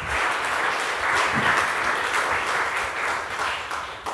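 Audience applauding and clapping, fading out near the end.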